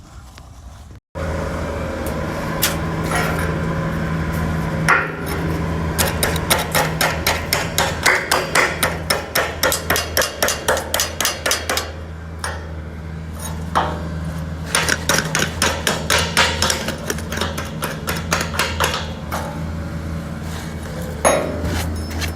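Repeated hammer strikes on steel, about three a second in two runs, over the steady hum of a running engine.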